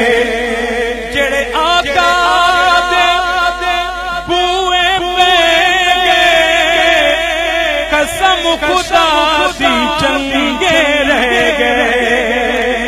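A man singing a Punjabi naat unaccompanied, drawing out long, wavering held notes.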